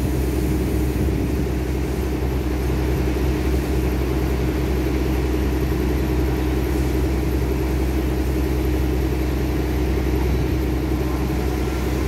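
Steady low mechanical rumble and hum of a running motor, unchanging throughout.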